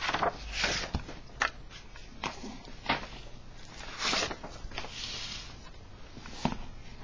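Pages of a clothbound hardback book being leafed through: several short paper rustles mixed with light taps and knocks as the book is handled on a table.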